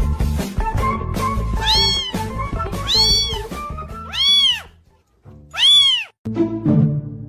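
A young black kitten meowing: four high, thin meows about a second and a quarter apart, each rising then falling in pitch, over background music that drops out partway.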